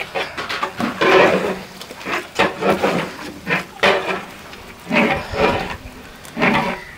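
A long-handled metal spatula scraping and turning beef and masala in a large aluminium biryani pot, in uneven strokes every second or so.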